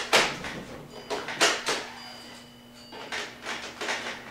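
Short knocks and rattles from hands working the front door of a Cooler Master Cosmos II computer case while feeling for its release, with a lull about two seconds in before a run of smaller knocks.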